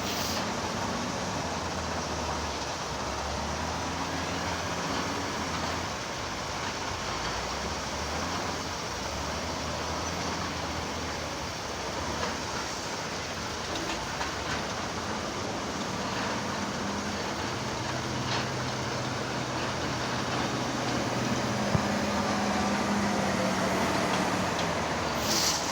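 Heavy earthmoving machine's diesel engine running steadily, its low hum shifting a little in pitch as it works.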